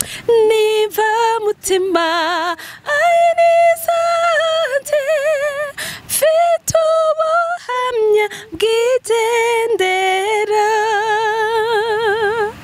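A woman singing a worship song a cappella into a handheld microphone, in long held notes with a wide vibrato, phrase after phrase. A few short sharp clicks fall between the phrases.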